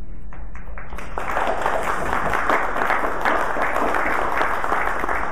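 Audience applauding: a few scattered claps that fill out into steady applause about a second in.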